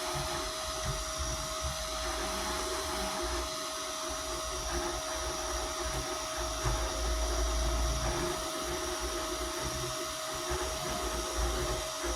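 A small high-speed electric motor running steadily with a constant whine over an uneven low rumble.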